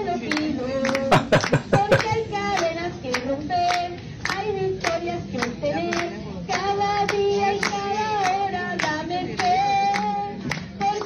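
A woman singing a worship song while the congregation claps along in a steady beat, about two claps a second, with a quick flurry of louder claps about a second in.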